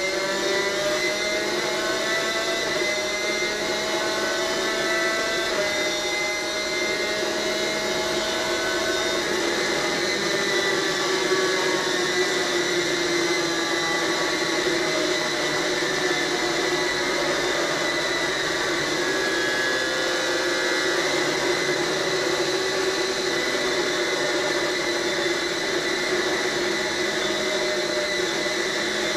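Onboard sound of a superkart's two-stroke racing engine running hard, a steady high-revving whine whose pitch climbs slowly for long stretches and drops back in steps.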